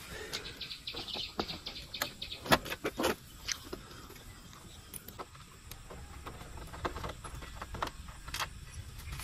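Scattered clicks and clinks of a hand tool working at the bolts of a motorcycle's side fairing, the loudest two about two and a half and three seconds in. Birds chirp faintly.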